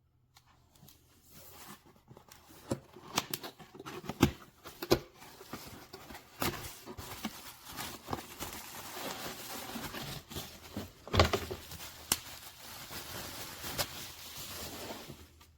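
Rustling, crinkling handling noise with irregular sharp clicks and taps. It starts suddenly and stops near the end.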